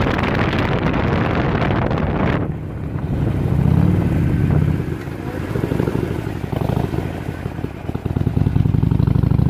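Wind rushing over the microphone of a moving motorcycle. About two and a half seconds in, the wind drops away and leaves the low rumble of the Harley-Davidson's engine running, swelling and easing.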